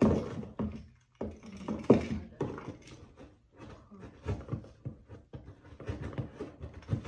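A large cardboard box being worked open by hand: irregular scraping, ripping and knocking on the cardboard, loudest at the very start and again about two seconds in.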